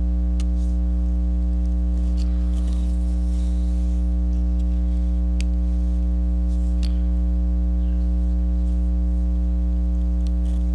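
Steady electrical mains hum with several overtones, picked up by the recording setup, with a few faint clicks scattered through it.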